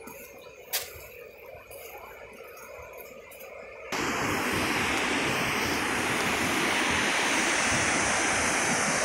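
Quiet outdoor air with one sharp click under a second in, then, about four seconds in, a sudden cut to the loud, steady rush of river water tumbling over rocks in rapids.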